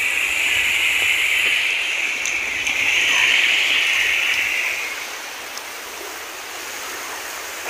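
Shallow seawater washing over sand and around wading bare feet, a steady hiss that weakens about five seconds in.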